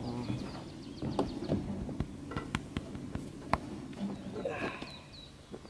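Irregular hollow knocks of boots on the wooden planks of a lakeside dock as a person walks and sits down, with a few short high bird-like chirps near the end.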